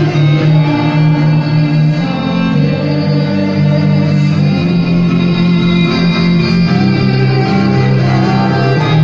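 Amplified cellos playing a slow, bending melody over long held low notes, heard through a concert sound system.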